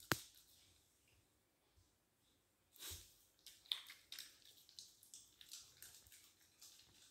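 Wire fox terrier sniffing and licking for the last scraps of her meal: faint wet licks, sniffs and small clicks. One sharp click comes just after the start, then a quiet spell, and a busier run of licks and clicks from about three seconds in.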